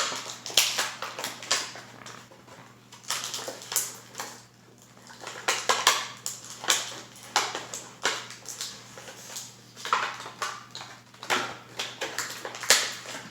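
Plastic packaging and small plastic toy pieces being handled on a table: repeated crinkling, rustling and sharp clicks in irregular clusters.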